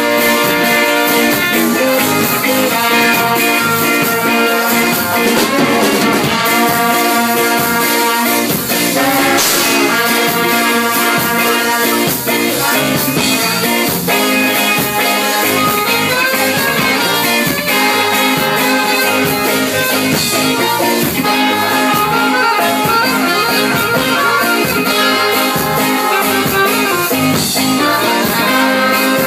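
Live band playing, with horns carrying held melody notes.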